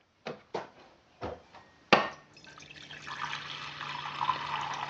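A few light knocks of a stainless steel saucepan being handled at a sink, then a sharp click about two seconds in and rainwater runs from a tap into the saucepan, filling it, over the steady hum of a small electric pump.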